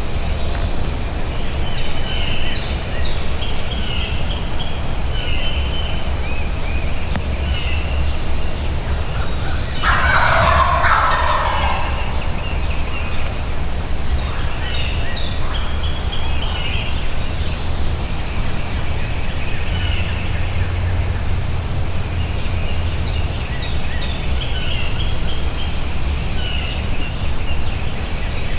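Wild turkey gobbler gobbling loudly once, about ten seconds in, over high chirping of songbirds.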